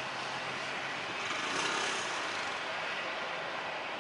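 Jet engines of a Boeing 737 airliner running on the runway at the start of its take-off, a steady rushing noise that swells slightly about one and a half seconds in.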